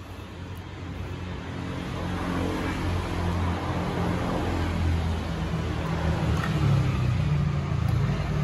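Low motor vehicle engine rumble that grows steadily louder over the first few seconds and then holds.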